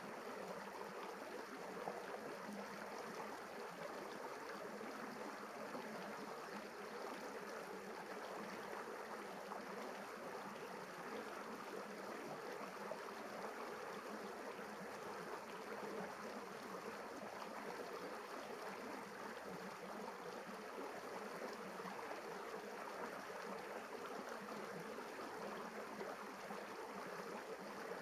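River water running over rock ledges and small rapids, a steady rush.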